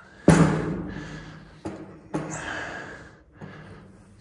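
A 15 mm copper pipe being bent in a hand lever pipe bender as its handles are pulled together: a sharp, loud sound a moment in, then three more, each fading over about a second.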